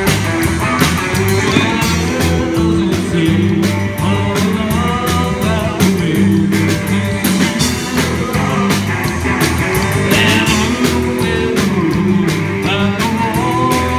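Live rock band playing a song on drum kit, electric guitar and upright bass, with a steady driving beat.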